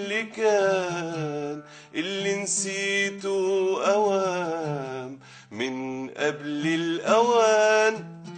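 A man singing a slow Arabic vocal line with an oud: long held notes that bend and waver in pitch over steady low notes, with short breaks between phrases.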